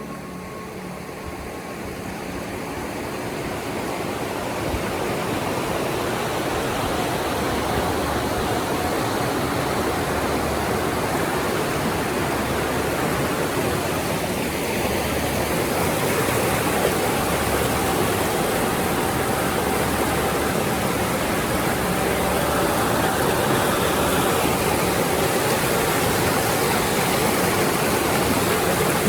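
Rushing water of a mountain stream running over rocks, a steady rush that swells over the first few seconds.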